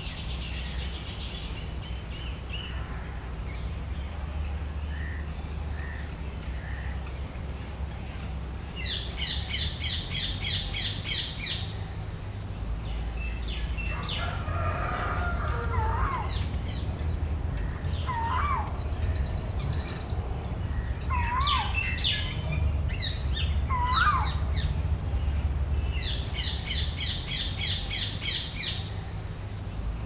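Wild birds calling outdoors: a run of sharp call notes repeated about three times a second, given twice, with a few short whistled calls in between. Under them are a steady high insect drone and a low rumble.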